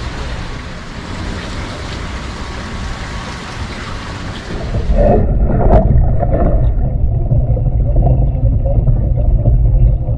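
Wind and water noise at the surface, then about halfway through the sound suddenly turns muffled as the camera goes underwater: a low water rumble with brief bubbling heard through the submerged camera's housing.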